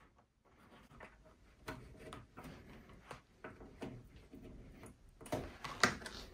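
RCA plugs being pushed into the rear analog input jacks of a Pioneer D-05 DAT deck, with cable rubbing and small clicks as the lead is handled. The sharpest clicks come near the end as the plugs seat.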